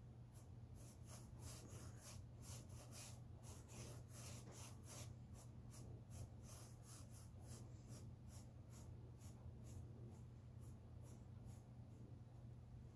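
Faint, short brush strokes of a small round paintbrush dabbing paint onto a stretched canvas, about two to three a second, stopping near the end, over a steady low hum.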